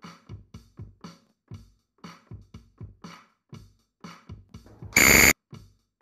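Quiz countdown-timer music: a drum-machine beat of low thumps and clicks, about four hits a second. About five seconds in, a short, loud buzzer marks time running out.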